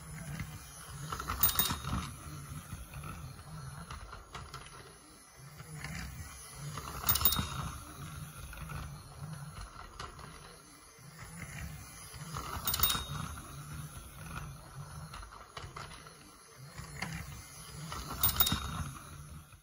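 Battery-powered Plarail toy tram (Iyo Railway Moha 50) running on plastic track, its small motor buzzing and its wheels clattering over the track. The sound swells each time it passes closest, four times at about five-and-a-half-second intervals.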